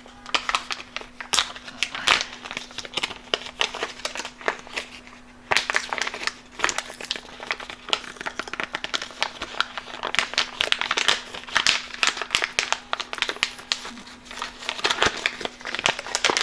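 Compostable stand-up pouch film being handled and crinkled, crackling and rustling in dense irregular bursts.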